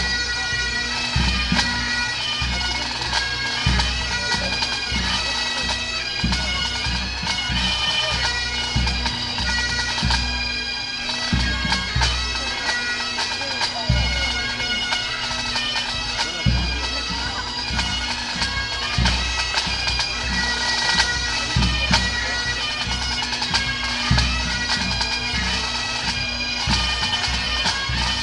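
Pipe band playing Great Highland bagpipes: the steady drones sound under the chanter melody throughout. Drum beats sound in the low end, from the band's drum corps.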